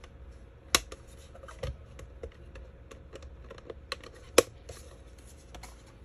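Hands handling a white plastic 5G router casing: scattered light clicks and taps of plastic parts, with two sharp clicks, one a little under a second in and one past four seconds.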